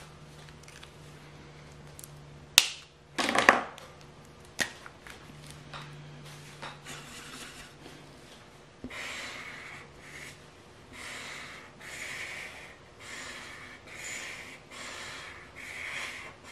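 A few sharp clicks and a short clatter as markers are handled and swapped, then a Promarker marker coloring on paper in steady back-and-forth scratchy strokes, about one a second, from about halfway through.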